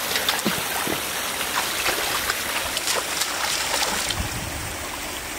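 Steady rush of water pouring over rocks into a shallow muddy pool, with many small splashes and slaps as hands and catfish stir the water.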